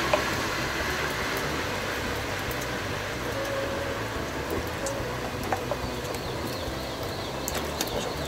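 Steady background hum with a few light clicks and taps from handling a plastic PVC pipe elbow and the cement can, the last ones near the end as the elbow is pushed onto the pipe.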